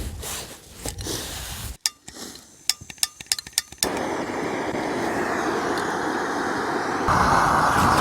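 A run of sharp clicks, then a gas camping stove burner catching and running with a steady rushing hiss, which gets louder about seven seconds in as it is turned up.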